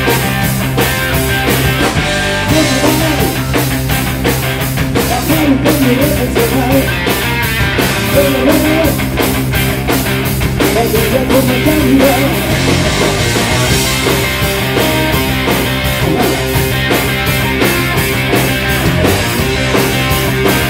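Rock band playing live: electric guitar, bass guitar and drum kit, with a man singing through roughly the first half.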